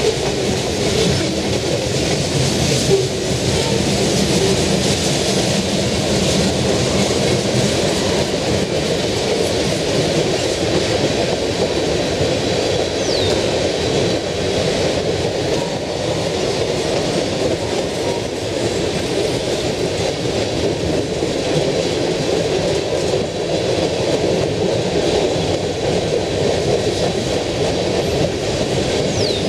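Cars of a Lake State Railway freight train (boxcars, tank cars and covered hoppers) rolling past: a steady, loud rolling noise of steel wheels on the rails.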